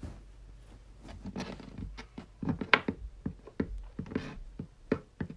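Irregular light taps and rustling as plastic Schleich toy horse figures are handled and moved over a hard floor by a wooden toy fence.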